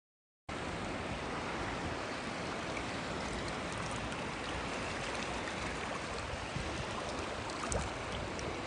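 Steady wash of sea surf, cutting in suddenly about half a second in after dead silence, with a few faint clicks near the end.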